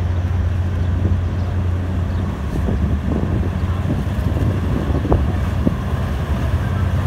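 A passenger ferry's diesel engines running with a steady low hum as the boat pulls away from the dock.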